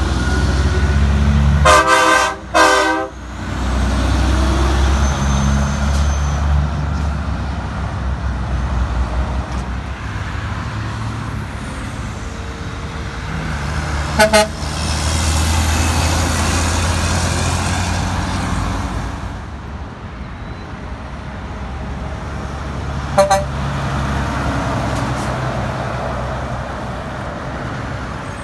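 Heavy diesel trucks passing on a highway, their engines a steady low rumble. A truck horn sounds a loud double blast about two seconds in, and there are short horn toots about halfway through and again later. Between them a Mack dump truck's diesel swells as it pulls by.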